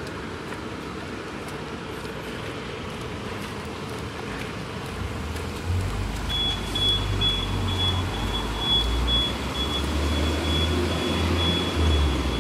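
Road traffic noise on a city street, with a heavy low rumble from about five seconds in and a high-pitched pulsing beep from about six seconds in.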